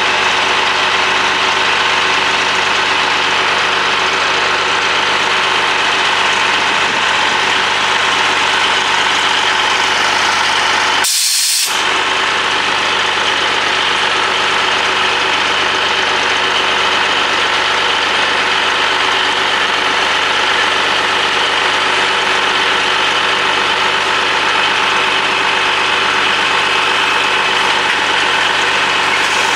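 Caterpillar 3406 inline-six diesel engine of a twin-screw International 2070 truck running steadily.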